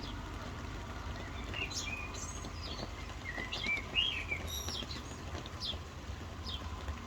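Several small birds chirping, quick short calls clustered in the middle, over a steady hiss of soft rain and a low rumble underneath.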